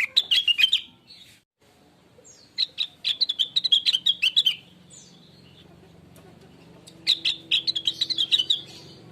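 Blue-winged leafbird (cucak wilis, called rengganis) singing in three bursts of rapid, high chirping notes, with short pauses between the phrases. A faint low steady hum runs underneath.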